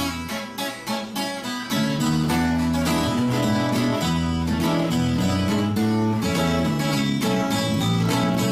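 Acoustic guitars playing the start of an instrumental música campirana (Mexican country) piece: a run of single plucked notes, then strummed chords over low notes set in about two seconds in and keep a steady rhythm.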